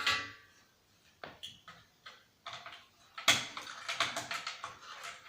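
Disassembly clatter: a metal screwdriver and small screws clinking and knocking against the TV's plastic casing and chassis. It opens with a sharp metallic clink that rings briefly, has a few scattered clicks, and becomes a busier run of clatter about three seconds in.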